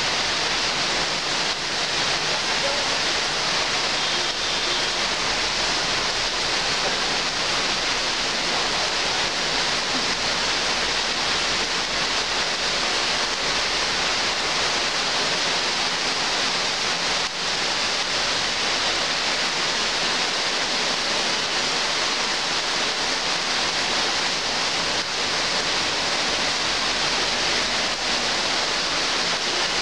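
Heavy rain pouring steadily onto trees and foliage, an even, unbroken hiss of falling water.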